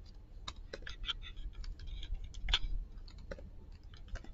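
Computer keyboard being typed on slowly: irregular, separate keystroke clicks.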